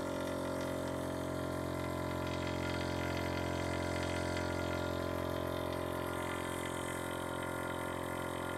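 VIAIR 444C air-suspension compressor on bolt-on isolator feet, running steadily: an even motor-and-pump hum made of several steady tones, at about 72 decibels.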